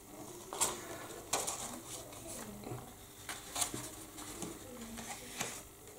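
Paper decal sheets being handled and laid down on paper: soft rustles with a handful of light ticks and taps, scattered and irregular.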